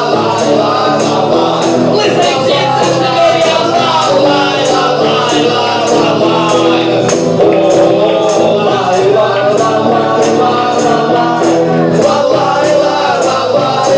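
Live acoustic band music with a steady, bright jingling percussion beat, about two and a half strokes a second, and voices singing over it.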